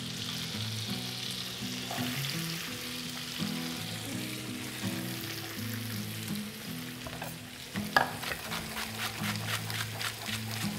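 Chicory frying in butter in a pan, a steady sizzle. About eight seconds in, a knife starts chopping on a wooden cutting board, about three strokes a second.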